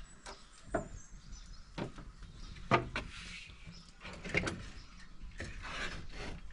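Iron door of a charcoal oven being unlatched and swung open, with a few sharp metal clicks and knocks, the loudest about three seconds in, then a metal pan scraping as it is set onto the grate inside.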